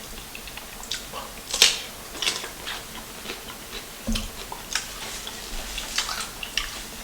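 A person chewing food close to the microphone: scattered soft mouth clicks, with a low bump about four seconds in.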